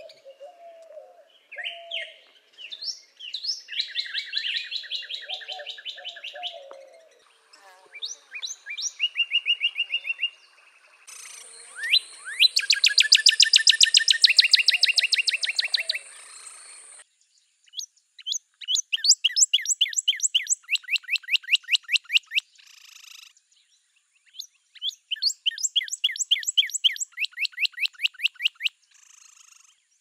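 Northern cardinal singing: runs of quick, down-slurred whistled notes repeated several times, in separate songs with short pauses between. Fainter lower calls sit under the songs in the first few seconds, and a steady thin high tone runs under them in the middle.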